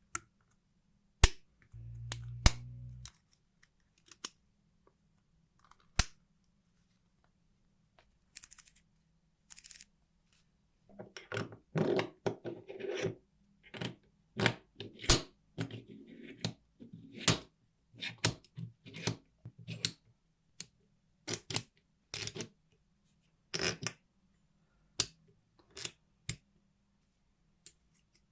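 Sharp, separate clicks and taps of small hand tools and metal parts, with a brief low hum about two seconds in. From about eleven seconds in, a dense run of irregular clicks and scraping follows.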